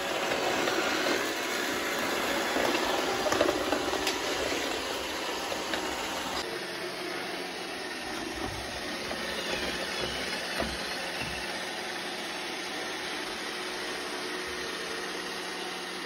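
iRobot Roomba 677 robot vacuum running while it cleans: a steady whir of its motor and brushes, with a few sharp clicks and rattles about three seconds in.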